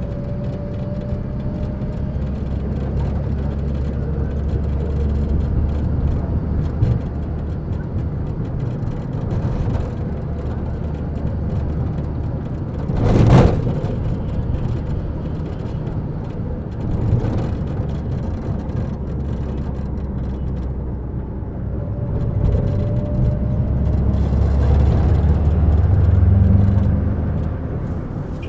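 Combi minibus driving, heard from inside the cabin: steady engine hum and road noise, with a loud sudden bang about halfway through and a smaller knock a few seconds later. The engine grows louder near the end as the bus pulls harder.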